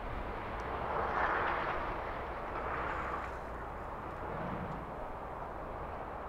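Heavy construction machinery running with a steady, noisy rumble that swells louder twice, about a second in and again around three seconds in.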